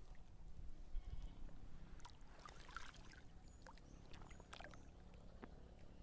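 Wind buffeting the microphone, a steady low rumble, with a short cluster of clicks and rustling about two seconds in.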